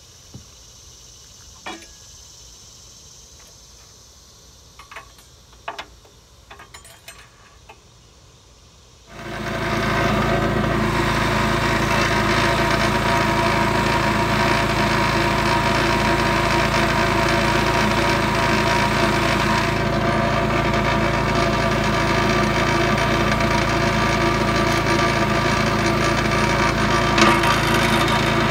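A few faint clicks and knocks, then about nine seconds in the trencher's small single-cylinder gas engine starts and runs loudly and steadily at a constant speed.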